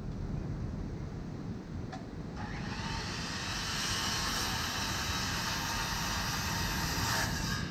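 A power tool runs with a steady hissing whir for about five seconds, starting abruptly a couple of seconds in and cutting off just before the end, over wind rumble on the microphone.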